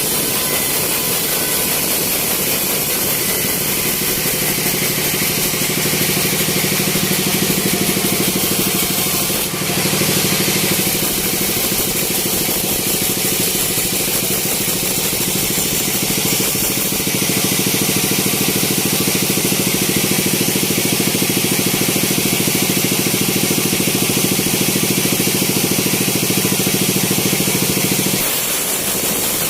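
Sawmill machinery running steadily with a hum and a strong hiss, briefly dipping about ten seconds in and changing pitch near the end.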